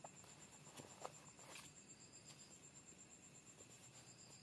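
Near silence: room tone with a faint, steady high-pitched trill and a few soft clicks near the start.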